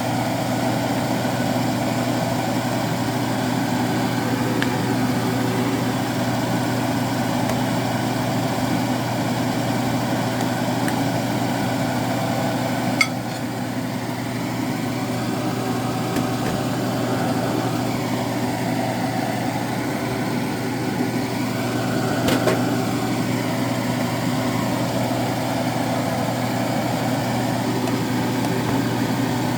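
Steady mechanical hum from a motor or appliance, with two short sharp clicks, one about halfway through and one later.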